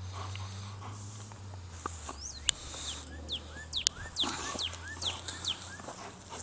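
A songbird singing a quick run of repeated falling whistles, about three a second, starting about two seconds in, with a few sharp knocks mixed in.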